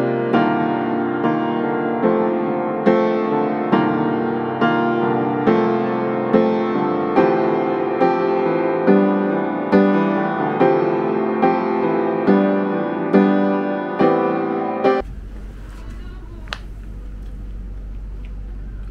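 Gentle solo piano music, a note or chord struck about every second, that cuts off abruptly about three quarters of the way through. After that there is a steady low hum, with one brief sharp sound near the end.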